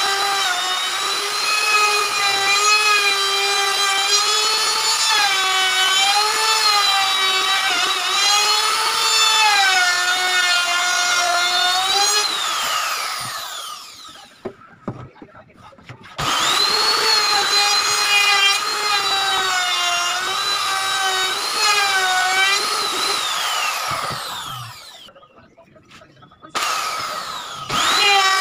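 Makita electric router running with a high whine as it cuts along the edge of a wooden cabinet door panel, its pitch wavering with the load. It is switched off and winds down twice, about halfway through and again near the end, starting up sharply each time it is switched back on.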